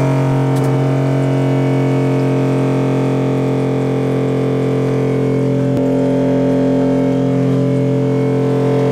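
Spectra Ventura 200T watermaker's 12-volt electric pump running with a loud, steady hum, with one brief click about six seconds in.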